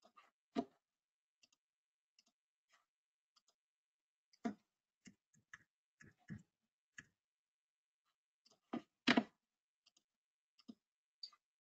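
Computer mouse clicking as software panels are worked, a dozen or so faint, irregular single clicks, the loudest under a second in, about four and a half seconds in, and a close pair about nine seconds in.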